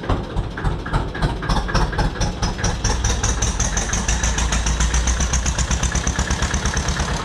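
Zetor 25 tractor's two-cylinder diesel engine running as the tractor drives off, with a slow, regular beat that quickens about three seconds in.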